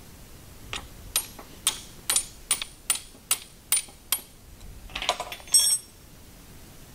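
A hammer strikes the end of a wrench about nine times, sharp ringing metal taps a little over two a second, to break loose a stuck bolt on a hydraulic floor jack. About five seconds in comes a short rattle of metal that ends in a ringing clang.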